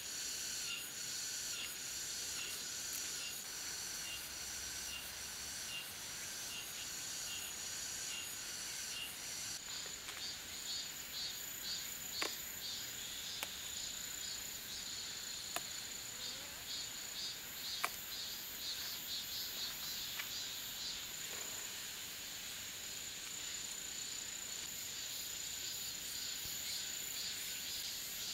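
Chorus of summer insects chirring high and pulsing, changing about ten seconds in to a steadier high drone, with a few faint sharp clicks.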